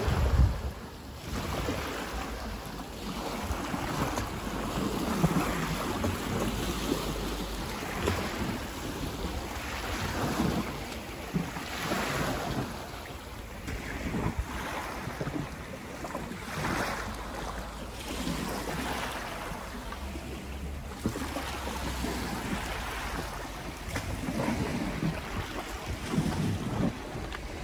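Small waves lapping and splashing at the shoreline, swelling and fading every second or two, with wind rumbling on the microphone in gusts.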